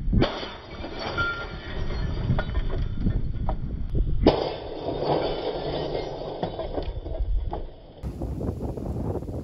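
A hammer smashing into the plastic housing and debris of a broken CRT TV, played back slowed down: two heavy strikes about four seconds apart, each drawn out into a deep rumbling crash with scattered clatter.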